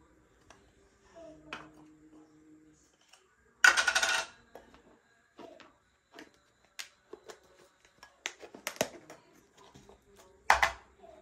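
Glass jars and bamboo lids being handled and set down on a plastic shelf: scattered clinks and knocks, with a short scraping rustle about four seconds in and a sharp knock near the end.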